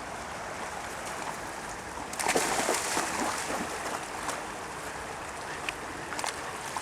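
Flowing river water with a steady rush, broken by a run of splashing and sloshing about two seconds in and a few more splashes near the end.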